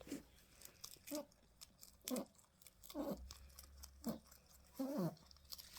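A pet rabbit eating, with crisp crunching clicks from its chewing and a short squeaky noise that falls in pitch, repeated about once a second. This is the noise the rabbit keeps making as it eats.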